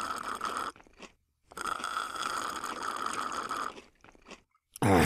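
Crunching, as of food being chewed, in two stretches: a short one at the start, then a longer one of about two seconds.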